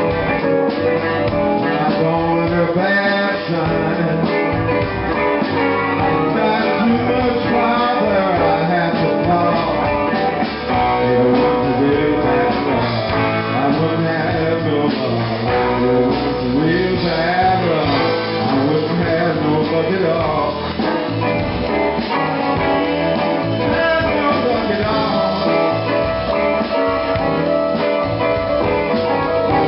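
Live blues band playing, with guitar prominent and notes bending up and down.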